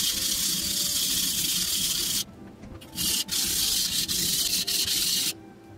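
Single-bevel high-carbon stainless knife blade being ground on a wet coarse whetstone, a steady scraping hiss of strokes that pauses briefly about two seconds in and stops near the end. The tip area is being worked to raise a burr on a hard steel.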